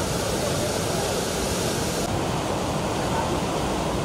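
Muddy floodwater rushing and churning in a swollen river, a steady roar of turbulent water. About halfway through, the highest hiss drops away.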